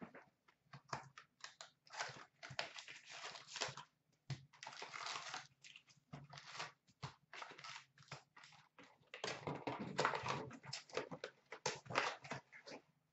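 Foil-wrapped Upper Deck hockey card packs crinkling and rustling as they are pulled out of an opened cardboard hobby box and handled, in irregular short bursts with light cardboard taps.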